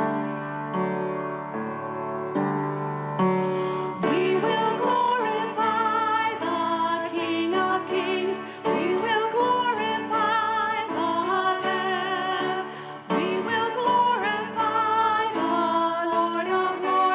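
Music: a closing hymn, with a woman singing with vibrato into a microphone over instrumental accompaniment. Her voice comes in about four seconds in, after a short instrumental introduction.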